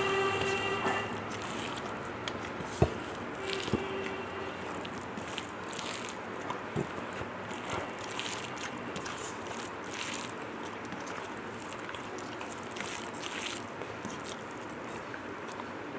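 Eating sounds: chewing and fingers working rice on a plate, with scattered small clicks over a low steady hiss. A long horn tone trails off about a second in.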